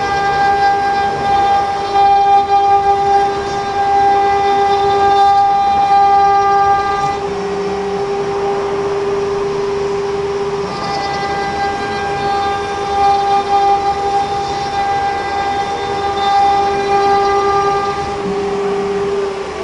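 CNC router spindle milling a pocket in a wooden board, with a steady high whine and a rough cutting noise beneath it. The upper overtones fade for a few seconds midway, then return.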